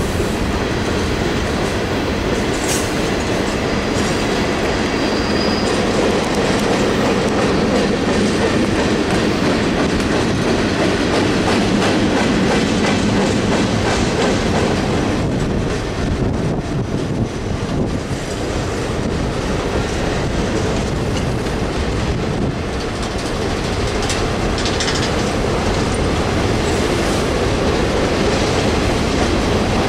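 Freight train cars rolling past: a steady rumble of steel wheels on the rails, with clickety-clack as the wheels cross rail joints.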